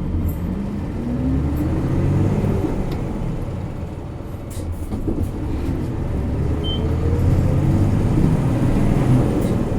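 Isuzu Erga Mio bus's diesel engine pulling hard under acceleration, heard from inside the cabin. The engine note climbs, drops off at a gear change about four seconds in, then climbs again in the next gear.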